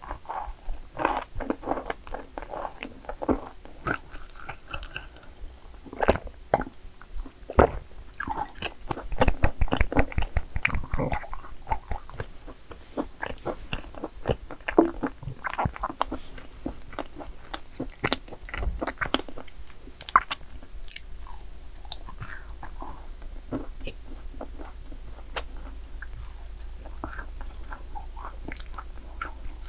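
Close-miked chewing and biting of yakgwa cookies: a steady stream of crunches and crackles, busiest about eight to eleven seconds in.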